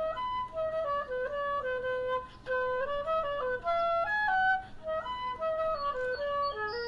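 Background music: a single melody of held notes played one after another, on what sounds like a woodwind instrument.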